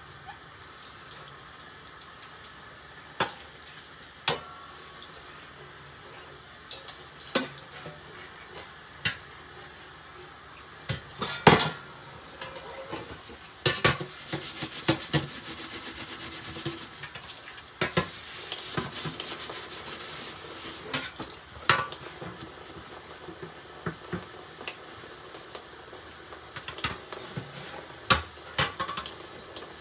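Scattered clinks and knocks of dishes, pots and utensils being handled while a kitchen is cleaned, with a couple of stretches of steady hiss in the middle.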